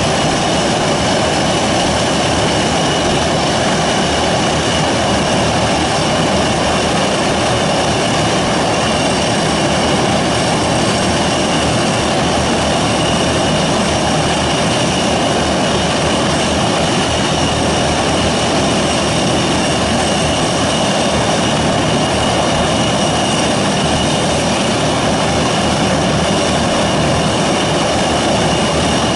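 Antonov An-22 Antei's Kuznetsov NK-12 turboprop engines running on the ground, contra-rotating propellers turning: a steady, loud drone with several high whining tones over it.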